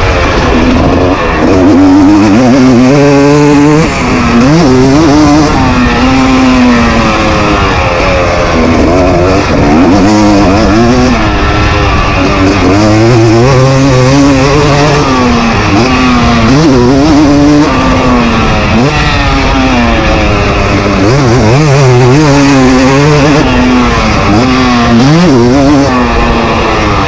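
KTM SX 250 single-cylinder two-stroke motocross engine at full riding speed. Its pitch rises and falls over and over as the throttle is opened and shut through the track's sections, heard close up from the rider's onboard camera.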